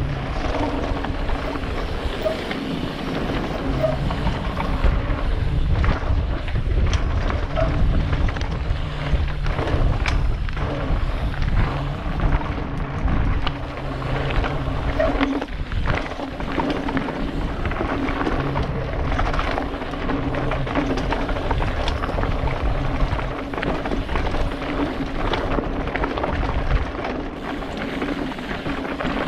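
Wind rushing over a helmet-mounted camera's microphone as a mountain bike descends a gravel trail, with a steady rumble and frequent knocks and rattles as the bike runs over bumps and stones.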